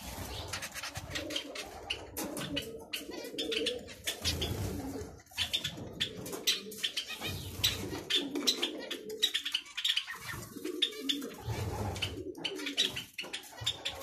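Zebra finches calling with rapid short beeping chatter, over a low, repeated cooing of pigeons.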